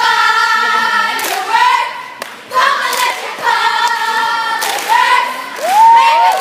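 Cheerdance squad of girls shouting a chant in unison, in two long held calls with a few sharp claps between them; near the end, rising and falling whoops.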